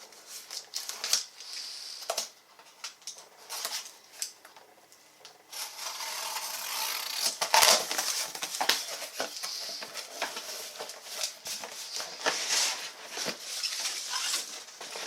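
Cardboard box being opened and unpacked by hand: irregular rustling, scraping and light knocks, sparse at first and busier and louder from about five seconds in.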